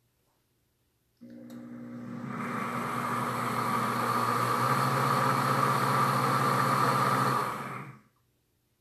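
Pampered Chef Deluxe Cooking Blender's motor starts about a second in, speeds up over the next second, runs steadily while blending the hot lemon curd, then winds down and stops near the end.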